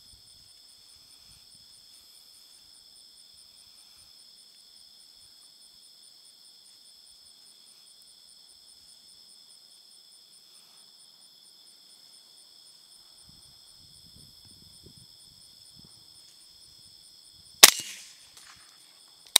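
A single 300 Blackout gunshot near the end, sharp and loud with a short fading tail. Under it, throughout, a steady high-pitched chorus of night insects.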